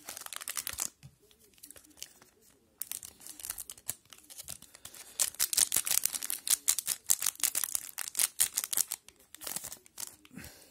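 Foil wrapper of a hockey card pack being torn open and crinkled by hand. There is a short rustle at the start, then a long stretch of dense crackling tearing from about three seconds in until shortly before the end.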